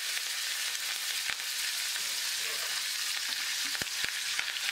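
Fresh curry leaves sizzling in hot oil in a small tadka pan during tempering: a steady hiss broken by a few sharp crackles.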